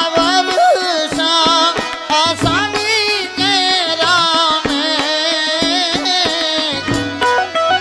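A man singing a Gujarati wedding farewell song (viday geet), holding long notes with a strong vibrato, accompanied by tabla strokes and a harmonium.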